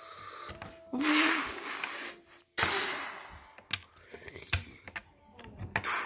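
Plastic LEGO bricks clicking and tapping on a wooden table as they are handled and pressed together, in scattered sharp clicks through the second half. Two loud hissing noises come before the clicks, the first about a second in.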